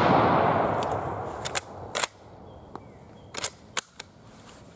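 The echo of a 6.5 mm Carcano M91/38 rifle shot dying away over about a second and a half. It is followed by a series of sharp metallic clicks as the Carcano's bolt is worked to eject the spent case and chamber the next round.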